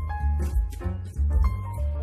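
Background music: a light keyboard tune of short held notes over a bass line, with a steady beat.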